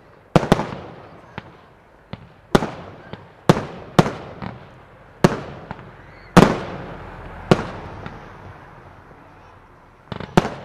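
Fireworks display: an irregular series of sharp bangs from aerial bursts, each trailing off in an echo, with the loudest about six seconds in. After a lull, a quick flurry of smaller pops comes near the end.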